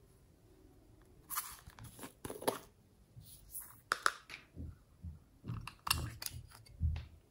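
Small plastic containers being picked up and handled: a string of sharp clicks, short rustles and soft knocks, starting about a second in.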